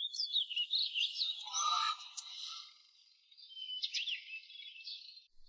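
Small birds chirping and twittering in quick high-pitched calls, a busy flurry in the first two seconds and another spell of chirps about four seconds in.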